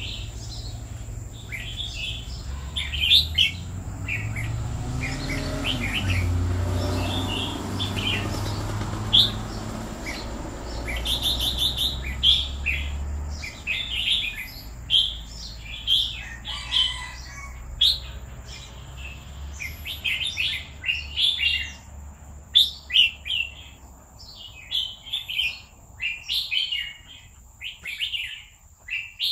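Red-whiskered bulbul (merbah jambul) singing: short, bright chirping phrases repeated again and again, with a low rumble underneath during the first half.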